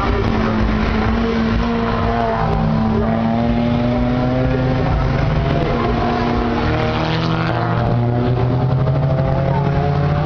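Several race car engines through a slow corner: one holds a steady note for the first few seconds, then the engines rise in pitch over several seconds as the cars accelerate away.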